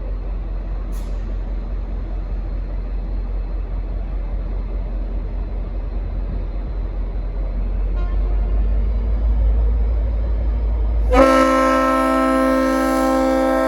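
Diesel locomotive running with a steady low rumble that grows a little louder in the later seconds, then about eleven seconds in its Leslie RS5T five-chime air horn sounds suddenly and is held as a loud multi-note chord.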